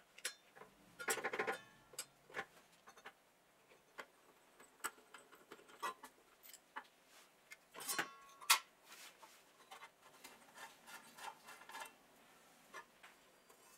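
Hand tools and small steel fasteners clicking, ticking and clinking against the rusty steel body of a cut-off saw as it is taken apart: a hex key in the blade's arbor bolt and a small bolt being unscrewed from the guard cover. Two brief metallic rings stand out, about a second in and about eight seconds in.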